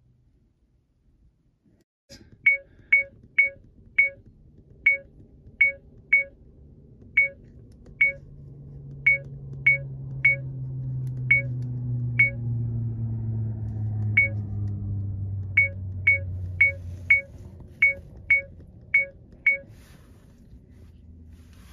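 70mai A200 dashcam giving a short electronic beep at each button press while the date and time are stepped through: about two dozen identical high beeps, irregularly spaced, some in quick runs, starting about two seconds in. Behind them a low rumble swells through the middle and fades away.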